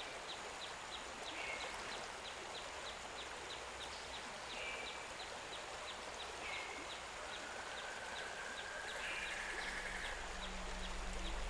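Forest riverside ambience: the steady rush of a river under an even, rapid high ticking call about three times a second and short bird calls every couple of seconds, with one longer held call about three-quarters of the way through. Low music notes fade in near the end.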